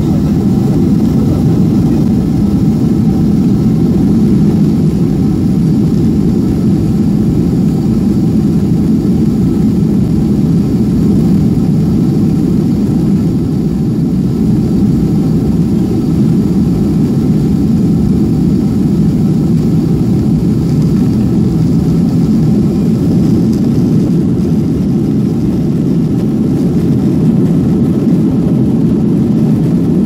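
An airliner's jet engines running at takeoff power with the brakes held on (a static takeoff), heard from inside the cabin as a loud, steady low rumble with faint steady whine tones above it.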